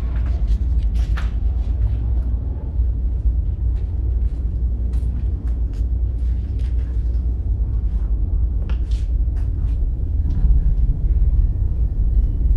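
Dark ambient soundtrack: a steady low rumbling drone with scattered faint clicks and taps over it.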